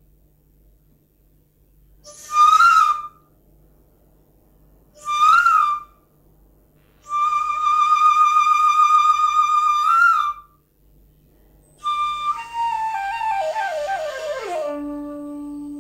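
Solo Japanese bamboo flute: two short, breathy high notes that bend upward at the end, then a long held high note, then a run of notes stepping down to a low note held near the end.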